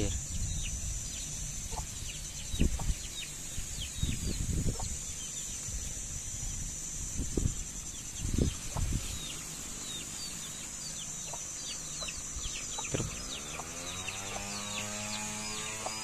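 Chickens calling around the yard, a constant run of short, high falling peeps, over a steady high hiss, with a few low thumps as the rooster is handled. About thirteen seconds in a drawn-out pitched hum starts up and holds.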